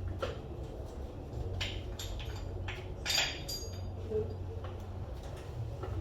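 Hand tools and small metal engine parts clinking and scraping, a few short knocks spread out with the loudest about three seconds in, as the distributor hold-down is refitted. A steady low hum runs underneath.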